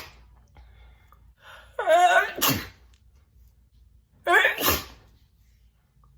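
A woman sneezing twice, wet and spitty. Each sneeze is a drawn-out 'ah' falling in pitch, ending in a sharp, hissing 'choo' burst.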